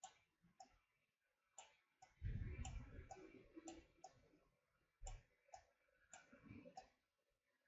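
Faint computer mouse clicks, a dozen or so at irregular intervals, with a brief low rumble a little over two seconds in.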